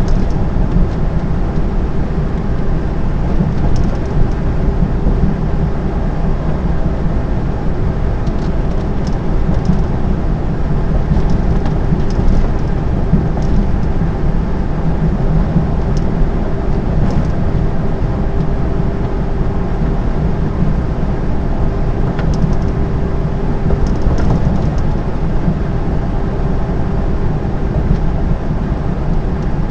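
Inside a lorry cab at motorway cruising speed: the diesel engine running and the tyres rumbling steadily, with a steady hum under it and a few faint ticks and rattles.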